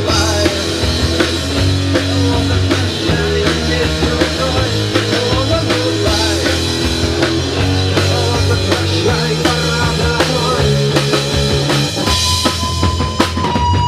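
Rock band playing an instrumental passage with a steady drum beat, bass and distorted electric guitar.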